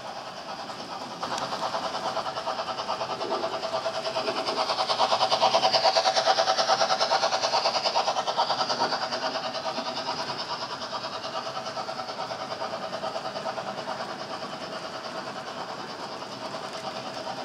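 HO-scale model BR 50 steam locomotive and its tank-wagon train running past on the layout: a steady mechanical whir and wheel rumble on the track. It gets louder about a second in, is loudest as the train passes close, then slowly fades.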